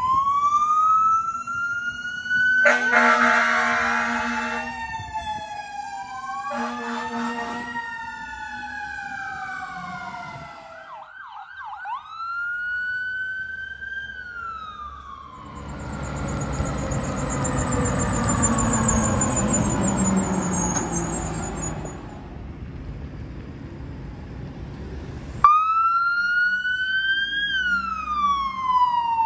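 Emergency vehicle sirens wailing, rising and falling, with two long horn blasts a few seconds in. In the middle the siren gives way to a stretch of rushing vehicle noise, and near the end a different siren cuts in abruptly.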